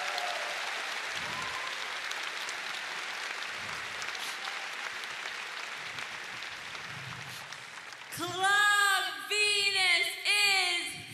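Crowd applauding, then about eight seconds in a woman's voice starts singing into a handheld microphone, long notes that rise and fall, louder than the applause.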